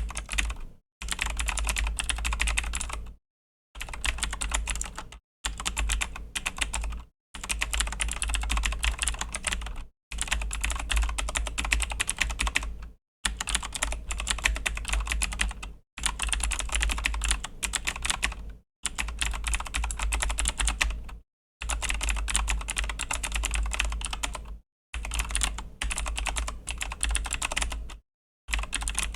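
Fast, steady typing on a Razer BlackWidow V3 mechanical keyboard with clicky Razer Green switches, each key giving a sharp click. The typing comes in runs of two to three seconds, broken by brief silent gaps, with a low hum beneath it.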